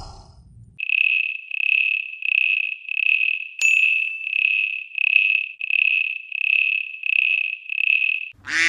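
Insect chirping: a high, pure-toned chirp repeated evenly about twice a second, with one sharp click about three and a half seconds in. A duck's quack cuts in at the very end.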